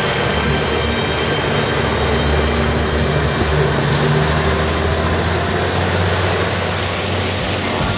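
Yamaha 300 outboard engine running steadily at speed: a constant low drone under a heavy rush of wind and water.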